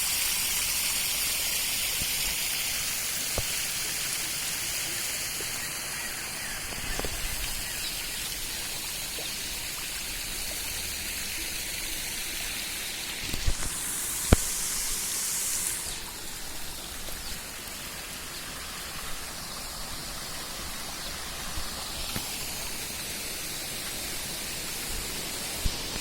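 Steady rush of river water flowing after heavy rain, a continuous hiss, with a few faint knocks and a brief louder hiss about fourteen seconds in.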